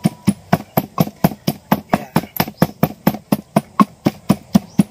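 Wooden pestle pounding chilies in a wooden mortar: a steady run of rapid, even knocks, about five a second.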